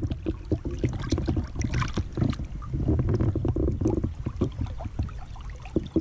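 Low rumble of wind on the camera's microphone, with a dense crackle of small clicks and water splashes as a small bass is handled and dipped back into the river.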